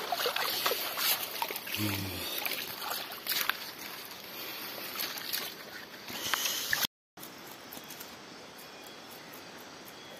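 Water sloshing and splashing with small knocks and clicks, as freshly netted fish are washed by hand in cold stream water. After a cut about seven seconds in, a steady fainter outdoor hiss.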